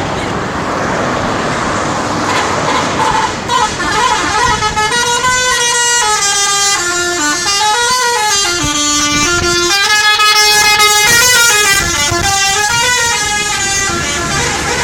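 Bus telolet horn playing a long melody of stepped, changing horn notes. It starts about three seconds in and runs for about ten seconds.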